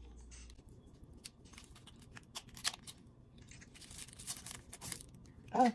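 Handling sounds from unpacking a small camera and its accessories: scattered light clicks and plastic packaging rustling and crinkling. A short hummed vocal sound comes near the end.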